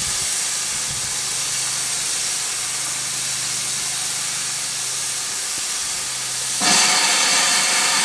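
GWR Manor class 4-6-0 steam locomotive 7820 standing with steam hissing steadily from the top of its boiler. Near the end the hiss suddenly grows louder and brighter.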